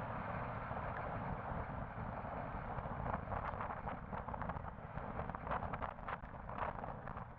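Steady roadside noise of traffic rumble and wind on the microphone. From about three seconds in come a quick, irregular run of short clicks and ticks.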